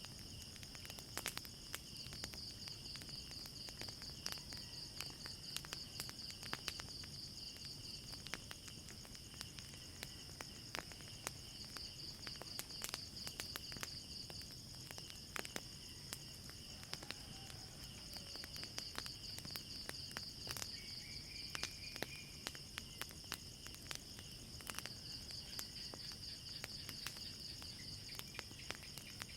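Crickets chirping in a steady, pulsing trill, with frequent sharp crackles and pops from a burning wood fire scattered through it.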